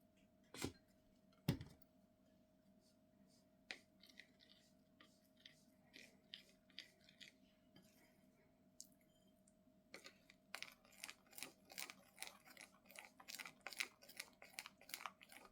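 Faint clicking and tapping of a spoon or whisk against a bowl while oat flour is mixed into the batter. Two louder knocks come in the first two seconds, then scattered taps, and from about ten seconds in a quick run of several taps a second.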